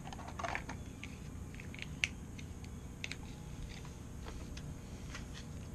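Faint scattered clicks and taps of small plastic toys and packaging being handled, with one sharper click about two seconds in, over a low steady room hum.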